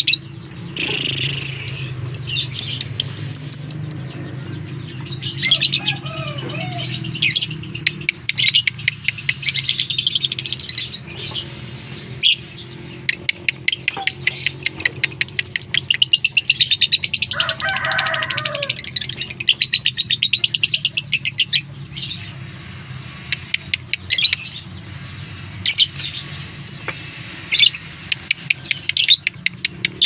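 Lovebird singing: long runs of rapid, rattling chatter made of fast repeated notes, broken by short pauses, over a steady low hum. This is the kind of song played as a lure recording to set other lovebirds singing.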